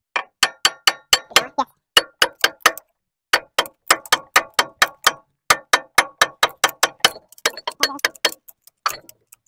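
Hammer striking the steel rod eye of a bulldozer hydraulic cylinder in quick runs of about four or five blows a second, with short pauses, each blow ringing metallically. The blows drive the rod's piston and gland into the cylinder barrel during the reseal.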